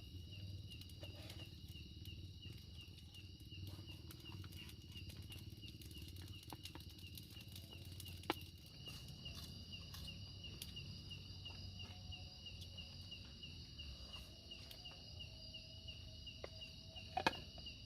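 Steady chorus of insects trilling in the forest, a high pulsing drone, with a low background rumble. Two short sharp knocks, about halfway through and near the end.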